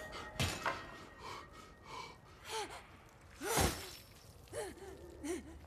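A man gasping in shock: a few short, ragged breaths with brief voiced catches, the loudest about three and a half seconds in.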